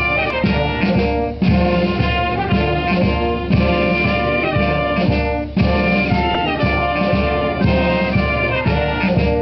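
Military wind band of saxophones, trumpets, tuba and drum playing a national anthem, with sustained brass chords over a steady bass beat.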